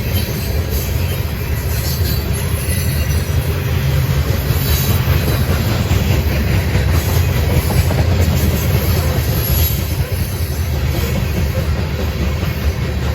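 Loaded freight train's cars rolling past on the rails: a steady, loud rumble of wheels on track.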